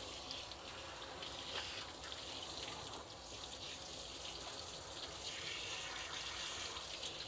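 Water spraying steadily from a hose sprayer nozzle onto a small dog's wet coat, rinsing out the conditioner.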